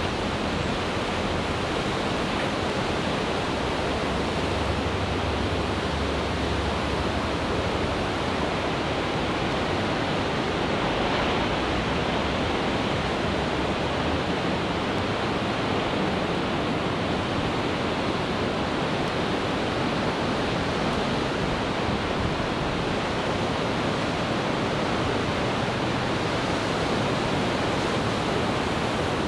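Pacific Ocean surf breaking on the shore: a steady, even rush of white water, with no single wave crash standing out.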